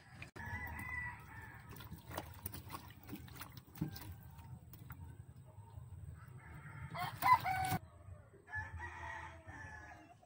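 Roosters crowing three times, the loudest crow about seven seconds in. Light clicks and knocks come in between.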